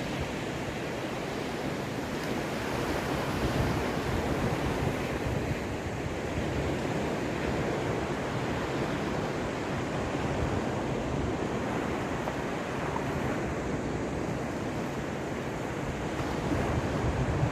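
Caspian Sea waves breaking and washing on the shore in a continuous surf, swelling a little in loudness now and then, with some wind buffeting the microphone.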